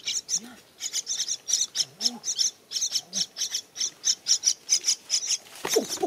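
Parrot chicks in a tree-hole nest begging for food with rapid, high-pitched chirps, about three to four a second, with a louder burst near the end.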